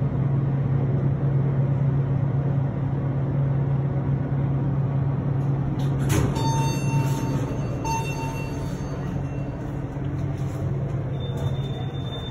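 Escalator running with a steady low mechanical hum. About six seconds in comes a click followed by two short electronic beeps, and a thin high-pitched tone starts near the end.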